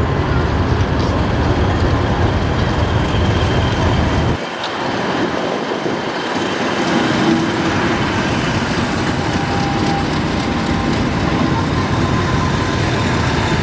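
Railtour train hauled by a pair of Class 50 diesel locomotives running over the level crossing. Its deep rumble drops away suddenly about four seconds in, then slowly builds again.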